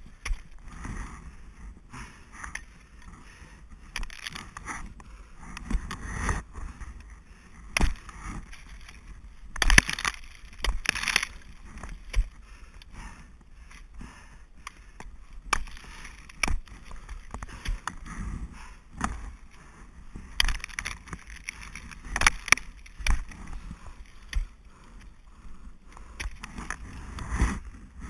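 Ice axe picks and crampon points striking and scraping into waterfall ice during a climb: sharp, irregular impacts, some in quick clusters, over rustling of gear and clothing.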